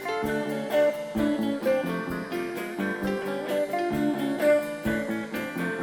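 Background music: guitar strummed and plucked in a steady rhythm.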